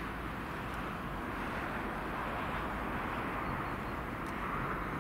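Distant 2TE25KM twin-section diesel locomotive working under power with a freight train, heard as a steady drone and rumble as it approaches.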